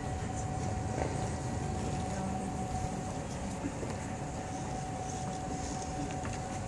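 Steady background rumble with a faint, even hum running through it.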